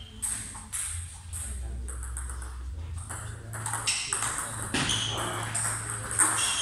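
Table tennis balls clicking off paddles and tables: a rally on the near table, mixed with scattered clicks from rallies on neighbouring tables in the hall. The clicks come at uneven intervals and grow busier about halfway through.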